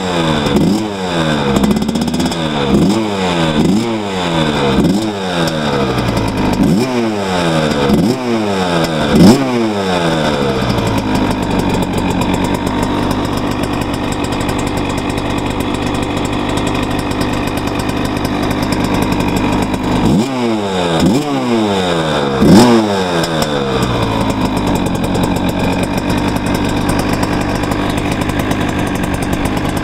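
Cagiva 125 two-stroke motocross bike engine being revved in quick throttle blips, about one a second, for roughly the first ten seconds, then idling steadily. A few more quick blips come about twenty seconds in before it settles back to idle.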